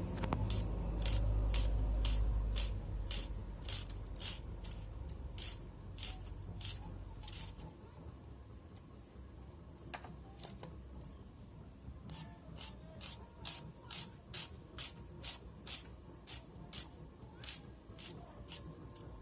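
An onion being sliced with a blade: crisp, regular cutting strokes about two a second, pausing for a few seconds midway before carrying on.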